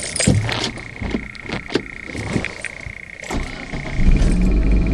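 Eagle Summit engine starting in park: a few irregular clicks with a steady high warning chime sounding, then the engine catches about four seconds in and settles into a steady idle while the chime turns to a rapid pulse.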